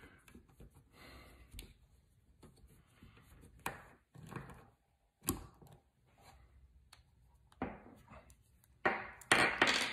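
Small metal tool-handling sounds as a T-handle Allen key works a set screw on a telescope focuser: faint scrapes and a few sharp separate clicks, with louder handling noise near the end.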